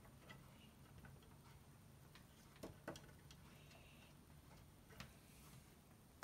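Near silence with a few faint light clicks, two close together about two and a half seconds in and one more near five seconds, from hands turning a 3D printer's spring-loaded bed-levelling knob and handling the sheet of paper under the nozzle.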